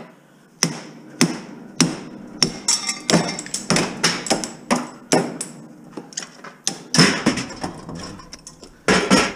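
Hammer blows on the steel core of a microwave oven transformer clamped in a vise: a steady run of sharp metal-on-metal strikes about twice a second, knocking the core apart to free the copper windings.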